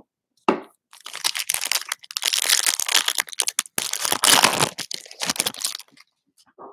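A Panini Select 2020 NFL foil card pack being torn open and its wrapper crinkled by hand: a dense crackle that starts sharply about half a second in and lasts about five seconds.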